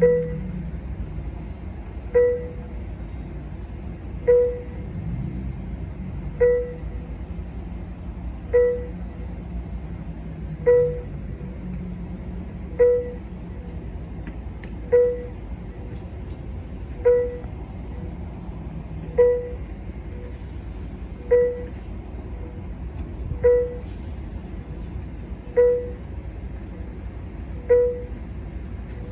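A single short electronic beep repeating evenly about every two seconds, over the low steady rumble of a diesel passenger train idling at the platform.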